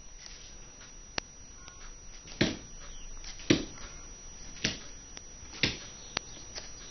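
A husky's paws thudding on the floor as it pounces after a torch light: four heavy thuds about a second apart, with a few sharper clicks in between.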